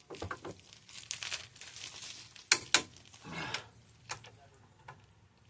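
Irregular rustling handling noises, with two sharp clicks a quarter of a second apart about halfway through, followed by a short rush of noise.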